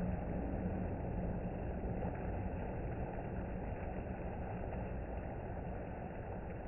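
Water-slide runoff rushing steadily out of the slide mouth and splashing into the pool: a low, even rumble with no breaks.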